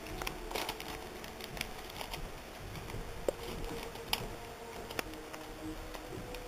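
Faint, scattered clicking and rattling of a K'nex roller coaster car running along its plastic track, over a steady low hum.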